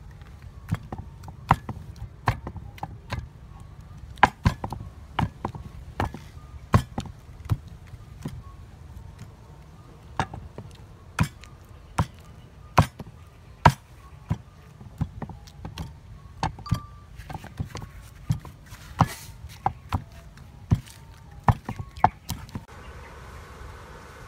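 A wooden pestle pounding in a wooden mortar, mashing a fish paste, with sharp irregular knocks about one or two a second. Near the end the knocks give way to a soft steady hiss.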